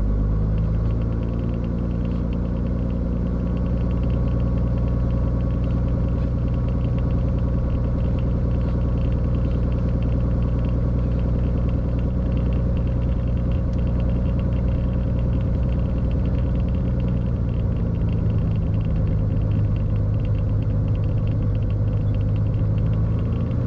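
Beechcraft Bonanza's single piston engine and propeller running steadily at low power, heard inside the cabin, while the plane taxis onto the runway and lines up for takeoff.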